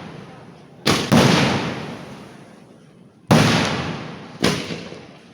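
Fireworks going off: four sharp, loud blasts, two in quick succession about a second in and two more about three and four and a half seconds in, each trailing off in a long rolling echo.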